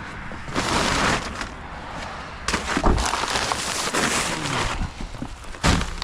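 Rock salt being flung out by hand, its granules scattering with a crackling hiss in bursts: a short one about half a second in, a longer one lasting about two seconds, and a sharp one near the end.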